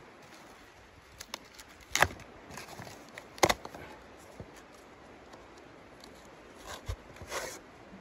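Kindling sticks being loaded into a small steel tent stove's firebox: a few light clicks, then two sharp knocks, about a second and a half apart. Near the end comes a short stretch of rustling and tearing cardboard.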